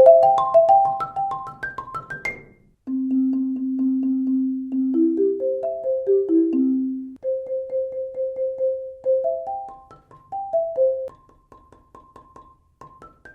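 Marimba played with Marimba One Wave Wrap yarn mallets. A quick rising run of rolled notes stops about two seconds in. After a brief pause, a slower rolled phrase starts on a low note and climbs through sustained rolled notes, growing quieter near the end.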